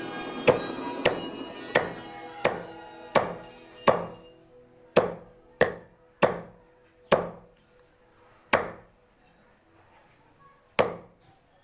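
Cleaver or heavy knife chopping through a snakehead fish on a cutting board: a series of about a dozen sharp chops, roughly one to two a second. Background music fades out in the first few seconds.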